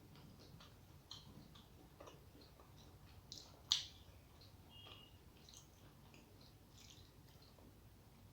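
Faint eating sounds: soft chewing and small wet mouth clicks, scattered irregularly, with one sharper click about three and a half seconds in.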